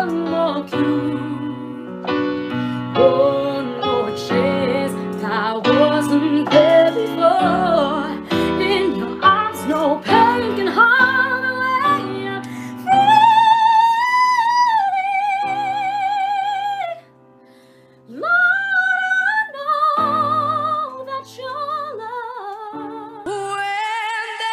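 A woman sings while accompanying herself on a keyboard. Partway through she climbs to long held high notes with a wide vibrato, breaks off for about a second, then sings on. Just before the end another woman's singing comes in, from a different recording.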